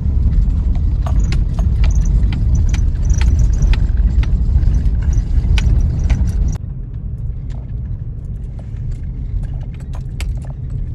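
Road noise inside a car driving over a rough sandy dirt track: a heavy low rumble with rapid clicking and rattling from the cabin. About two-thirds of the way through it drops suddenly to a quieter, smoother rumble with only scattered clicks.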